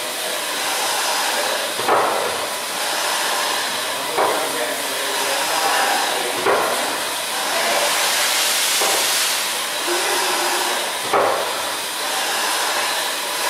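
1895 Worth-McKenzie triple-expansion steam engine running slowly under steam: a steady hiss of steam with a heavier beat about every two and a quarter seconds. There is no vacuum on its condenser yet, and without it the engine runs louder and rougher.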